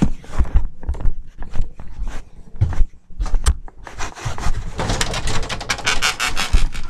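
Handling noise on a laptop's built-in microphone as it is carried: a run of knocks and bumps, then from about halfway a dense rustling as hair brushes across the microphone.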